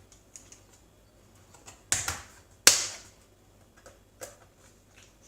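Small plastic clicks and taps from handling a Toshiba Satellite laptop's underside at its memory compartment. Two louder sharp knocks come about two seconds in, less than a second apart, the second the loudest.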